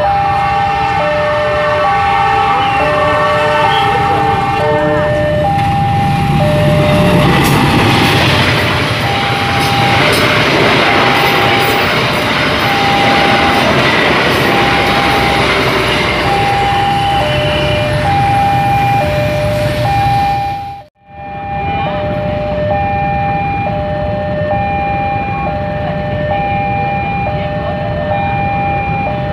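Railway level-crossing warning alarm sounding a repeating two-tone chime, high and low notes alternating about once a second. From about six to twenty seconds in, a passing electric commuter train adds a heavy rush of wheel and rail noise. After a brief break near twenty-one seconds the two-tone alarm goes on.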